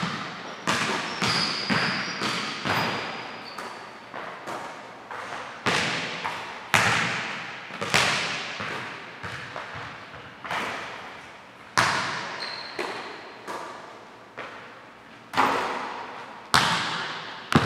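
Basketball thudding on a hardwood gym floor in an irregular run of dribbles and catches, one or two a second, each hit echoing in the large hall. A few short sneaker squeaks come between them.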